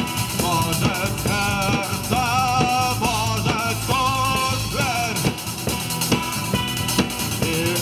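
Rock band playing: a drum kit keeps the beat under a bending, wavering lead melody.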